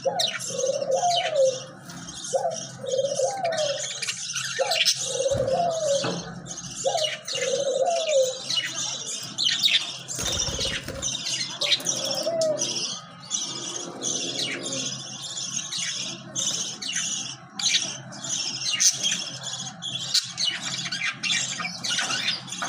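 Pet budgerigars chirping and chattering continuously in a dense stream of rapid high chirps. During the first half, a lower rising-and-falling note repeats about once a second.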